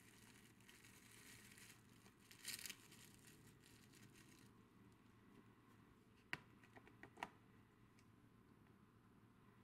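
Faint food-preparation handling sounds: a soft rustling or scraping for a few seconds, strongest about two and a half seconds in, then a few small sharp clicks, the two loudest about a second apart.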